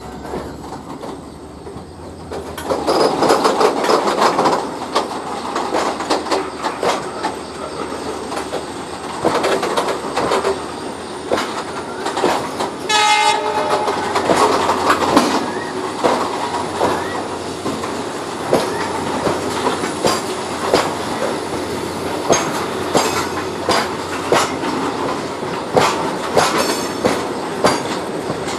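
A coal freight train hauled by twin EMD WDG-4 diesel locomotives passing as it picks up speed, its wagon wheels clattering over the rail joints. The sound grows louder a couple of seconds in, and there is a brief horn note about halfway through. Toward the end the clacks come about once a second.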